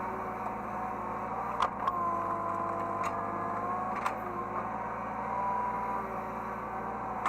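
Hydraulic excavator heard from the operator's cab: steady engine hum with a hydraulic whine that rises and falls as the machine works. A few sharp knocks come about a second and a half, three and four seconds in.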